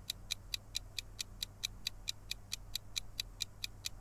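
Quiz countdown timer sound effect: a steady clock-like ticking, about four ticks a second.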